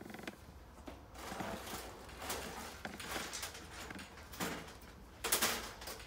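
Cordless drill driving self-tapping screws into a metal door frame, in several short bursts with the loudest one near the end.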